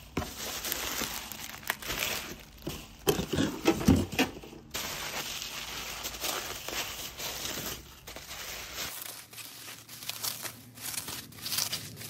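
Bubble wrap and plastic packaging crinkling and rustling as it is handled and lifted out of a cardboard box, with a busier, louder stretch of crackling a few seconds in.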